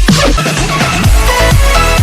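Loud electronic background music with heavy bass and held synth notes.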